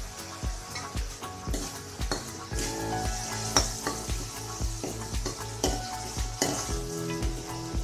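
A spoon stirring and scraping in a hot kadhai as the tamarind, jaggery and spice masala sizzles, with sharp clicks of metal on metal. Background music with a steady beat runs underneath.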